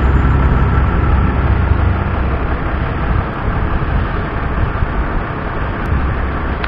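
Aircraft pushback tug's engine running, a loud, steady low rumble.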